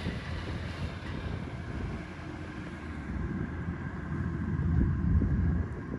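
Rice harvesting machine's engine running steadily with a low rumble, with wind buffeting the microphone; it swells briefly about five seconds in.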